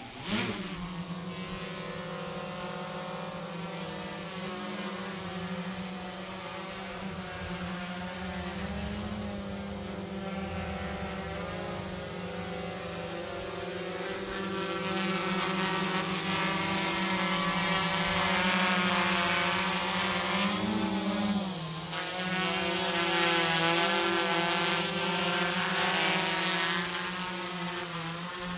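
GoPro Karma quadcopter's motors and propellers spinning up suddenly and then humming steadily in flight, the pitch wavering as it manoeuvres. The hum grows louder about halfway through, drops briefly about three-quarters in, then picks up again.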